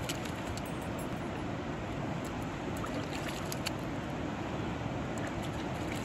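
Steady rush of a river flowing, with a few faint small clicks over it.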